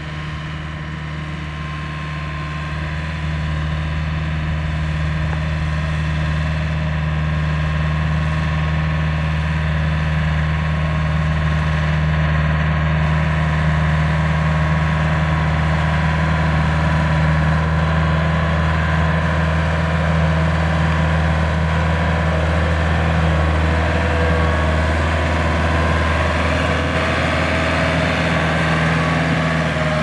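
Kubota combine harvester's diesel engine running steadily with a deep, even hum, getting somewhat louder about three seconds in.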